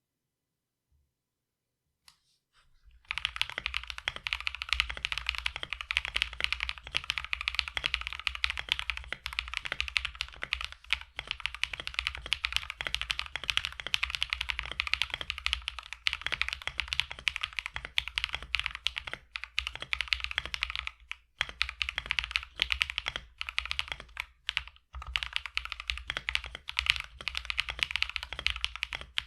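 Mechanical keyboard with hand-lubed Akko CS Matcha Green linear switches being typed on quickly and continuously, a sound test. It starts about three seconds in, after a short silence, and has a couple of brief pauses near the end. The lube gives the switches a deeper tone with no spring ping.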